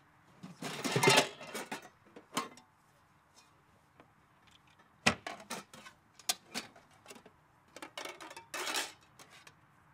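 Nested aluminium camping pots and lids clattering and clanking as they are lifted out of a wooden box and set down on grass. The clatter comes in irregular groups, loudest and longest about a second in.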